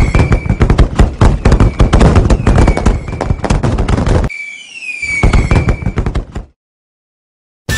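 Fireworks: a whistle falling in pitch, then a long run of crackling pops and bangs, then a second falling whistle and another shorter run of crackling that cuts off suddenly. Music begins at the very end.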